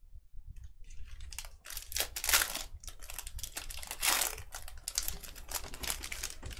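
Basketball card pack wrapper crinkling and tearing open, heard as a run of short rustles with two louder bursts about two and four seconds in.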